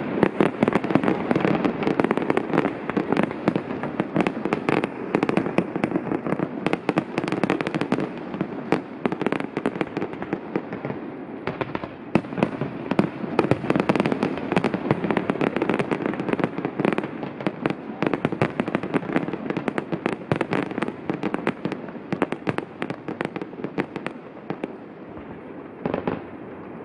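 Fireworks display: a rapid, dense barrage of aerial shells bursting and crackling one after another, thinning out near the end.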